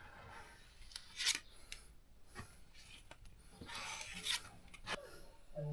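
Filler spreader scraping and smoothing body filler, a few short faint scrapes with pauses between them. The filler is starting to set.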